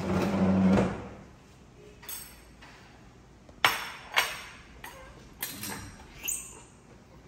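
A wooden chair scraped across the floor for about a second, then a run of sharp knocks and clinks as a ceramic plate and a knife are set down on a glass tabletop.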